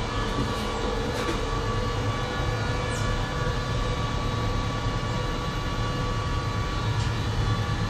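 Steady hum and rumble of a cable car cabin running along its cable, a low drone with a few held tones over it.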